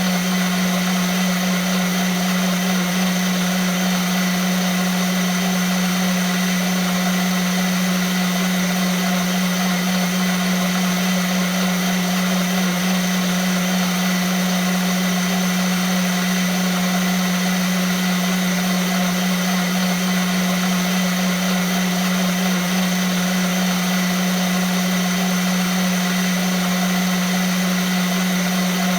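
Vitamix blender motor running steadily at constant speed, a strong low hum under an even high whir.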